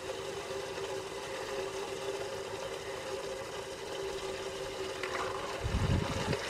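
A small motor hums steadily over a hiss, with a short low rumble about five and a half seconds in.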